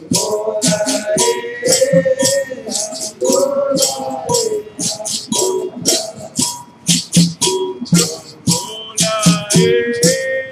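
Capoeira Angola roda music: berimbaus with caxixi rattles, a pandeiro and an atabaque drum playing a steady rhythm, with group singing over it.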